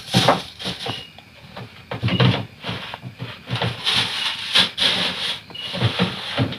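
Stone pestle grinding chilies and salt against a stone mortar (ulekan and cobek): repeated scraping strokes, about two a second.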